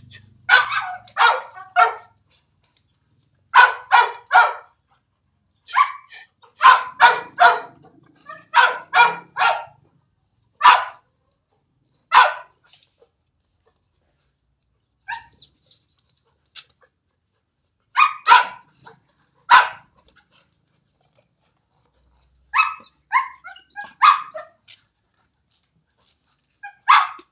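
A dog barking during rough play-fighting with another dog: short, loud barks in quick runs of two to four, repeating every few seconds, with a brief lull in the middle.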